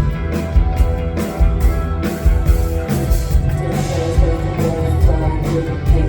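Post-punk band playing live: electric guitar and bass over a steady drum beat.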